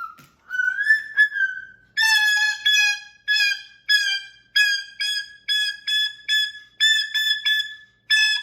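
Moluccan cockatoo mimicking an electronic beep: a long whistled note that rises and then holds, followed by a run of short, even beeps at about one and a half a second.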